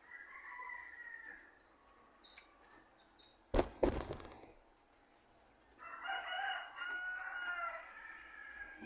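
A rooster crows: a short call at the start, then one long crow of about two and a half seconds in the second half. A loud sharp knock sounds in between.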